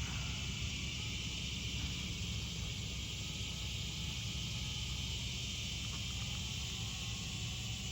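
DJI Mavic Mini drone in flight: a steady high buzzing hiss from its propellers, with a faint whine that wavers in pitch, over a low rumble.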